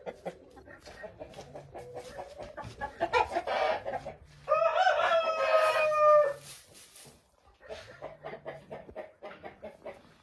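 A rooster crowing once, starting about three seconds in and ending with a long held, slightly falling note, among hens clucking softly and small clicks of the flock scratching and pecking in straw.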